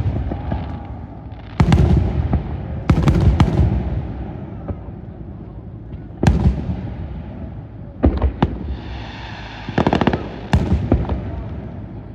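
Fireworks going off: a series of loud, sharp bangs at uneven intervals, two or three close together a couple of seconds in and another cluster near ten seconds, each trailing off in a rumble.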